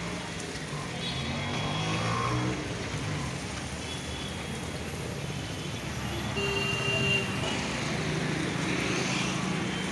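Street traffic noise: motor vehicles running and passing as a steady, continuous din.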